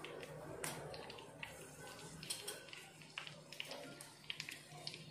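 Green chillies frying in bubbling hot oil in a small tadka ladle: a sizzle with irregular sharp crackles and pops.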